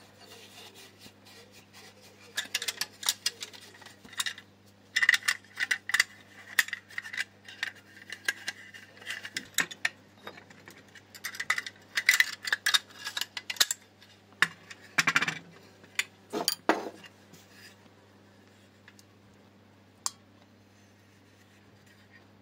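Small metal parts of a Feuerhand No. 75 Atom oil lamp clinking and tapping as they are handled, in irregular clusters of sharp clicks that stop a few seconds before the end. A faint steady hum runs underneath.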